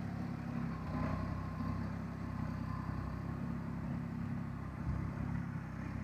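Compact tractor's engine running steadily under load while pulling a tined cultivator through the soil.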